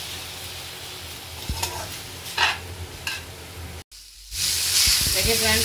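Fried rice sizzling in a hot pan as it is stirred and mixed, with light scraping clicks. The sound cuts out for a moment about four seconds in and comes back with a louder sizzle.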